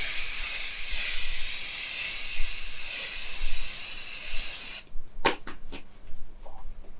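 Makeup setting spray misted onto the face in one long continuous hiss that stops sharply about five seconds in. A few short sharp clicks follow.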